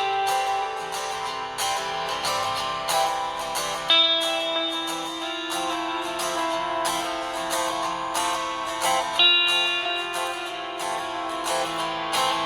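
Instrumental stretch of a song: a strummed guitar keeps a steady rhythm under held melody notes, with new notes coming in about four seconds in and again near nine seconds.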